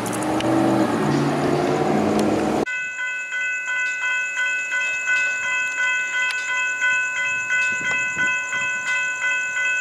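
A vehicle engine and road noise, cut off suddenly about two and a half seconds in. After that a railroad grade-crossing warning bell rings steadily, about two strikes a second, each strike dying away before the next.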